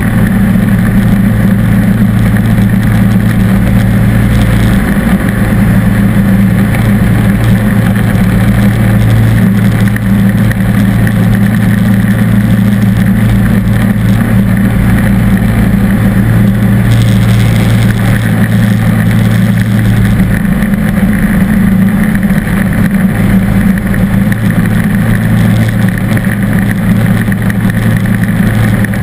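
John Deere D140 lawn tractor's V-twin engine running steadily and loud, close up, while driving a front-mounted snow thrower through snow.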